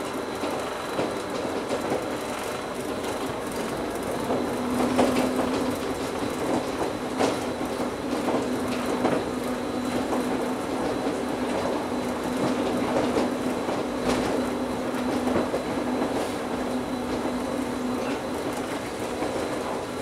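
Taipei Metro Wenhu Line Bombardier rubber-tyred train running along its elevated concrete guideway, heard from inside the front car: a steady running rumble with occasional knocks. A steady low hum comes in about four seconds in and stops shortly before the end.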